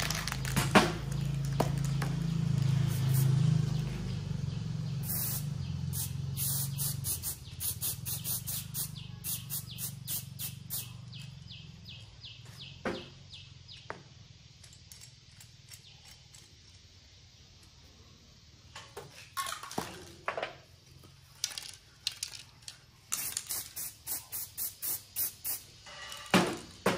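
Aerosol spray-paint cans being shaken, the mixing ball rattling in quick regular strokes, about four a second, in two spells, with a few short sharp sounds between them. A low hum runs through the first seven seconds.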